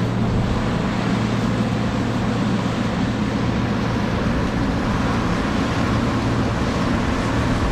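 Case IH 1666 combine harvester running steadily in the corn, a constant engine hum under an even wash of machinery noise.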